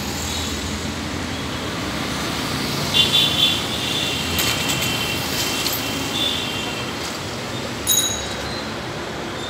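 Steady low machinery hum and general noise at an elevated metro rail construction site. High, shrill tones sound on and off from about three to seven seconds in, with a short high beep about eight seconds in.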